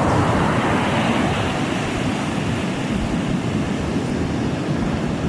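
Surf washing on a beach, a steady rushing noise, with wind on the microphone.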